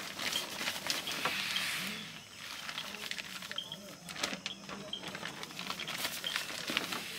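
A bag rustling as it is handled and folded by hand, with scattered clicks and light knocks throughout and a denser stretch of rustling about a second in.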